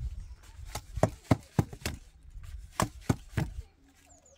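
A run of sharp knocks, about nine strikes in two quick bursts, stopping about three and a half seconds in.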